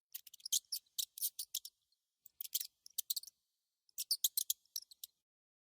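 Mouse squeaking: three bursts of rapid, very high-pitched squeaks with short pauses between them.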